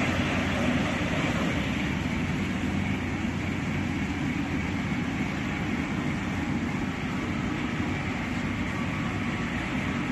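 Mattress-making machinery running steadily in a factory: a continuous mechanical rumble with a low hum and a hiss on top, easing slightly after the first couple of seconds.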